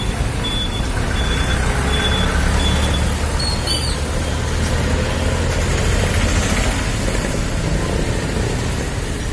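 A motor vehicle's engine running with a low rumble, and a reversing alarm beeping at an even pace that stops about three seconds in.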